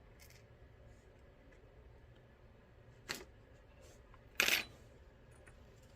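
Small metallic clicks as key pins are worked out of a Mul-T-Lock MT5+ lock plug: a light click about three seconds in, then a louder one about a second later.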